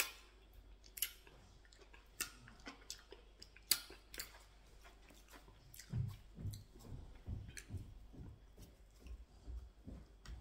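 Close-up mukbang chewing of pounded yam with ogbono soup, with sharp wet mouth clicks and smacks through the first half. Softer, low squishing sounds follow in the second half.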